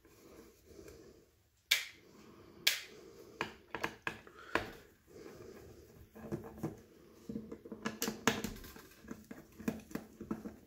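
Small screws being taken out by hand from the faceplate of a clock movement: scattered sharp clicks and taps, with light handling rustle in between. The loudest clicks come about 2 and 3 seconds in, and there is a quick cluster a little after halfway.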